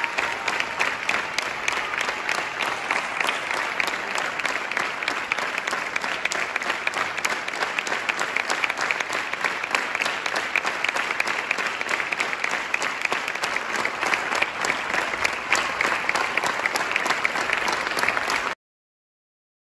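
Audience applauding, a dense and steady clapping that cuts off suddenly near the end.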